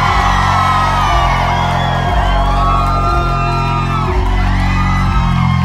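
Loud live concert music over a club PA: a heavy bass line stepping to a new note about once a second, with pitched voices wavering above it.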